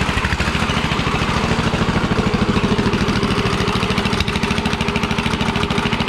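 Kohler Courage 19 single-cylinder lawn tractor engine running steadily after a head replacement, an even train of firing pulses; the owner thinks it needs a little bit of a tune-up.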